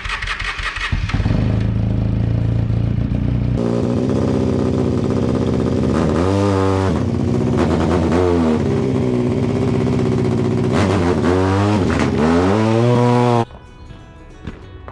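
A vehicle engine running loud, its pitch sagging and picking up again several times as it works. It stops suddenly near the end.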